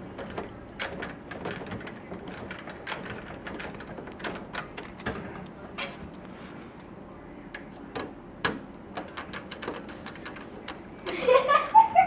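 Magnetic hand screwdriver driving the power supply's mounting screws into a steel PC case: scattered small metal clicks and scrapes of the bit and screws, with a brief louder burst of sound near the end.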